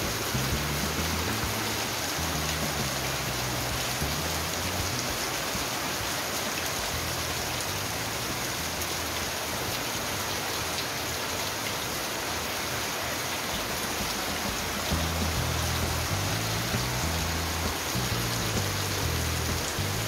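Heavy rain falling hard and steadily as a constant hiss, splashing on a concrete yard and pouring off the roof edge into a metal basin. A low bass line of background music runs under it, dropping away in the middle and coming back about fifteen seconds in.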